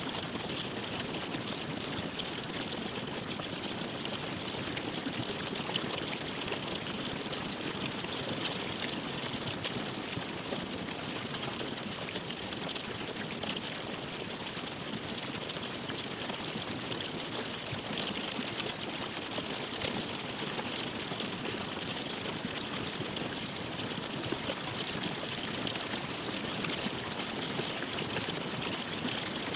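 Dense, steady crackling texture of computer-processed ice recordings, sounding like trickling water: sheets of thawing pond ice cracking and breaking, granulated into an electroacoustic sound collage.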